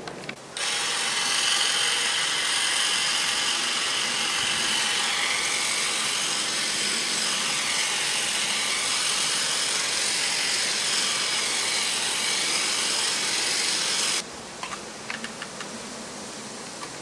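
Sun Joe GTS4001C 24-volt cordless pole hedge trimmer running steadily as its blades trim a shrub, then switched off suddenly about 14 seconds in. A few light clicks follow as the tool head is handled.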